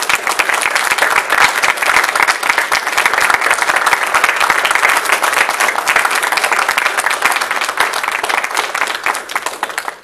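Audience applauding: a long, dense round of clapping that dies down near the end.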